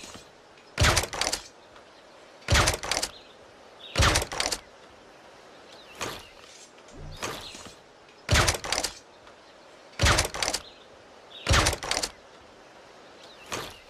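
Air rifle shots fired one after another, about one every second and a half. Each shot is a sharp double or triple crack, and a few are noticeably weaker than the rest.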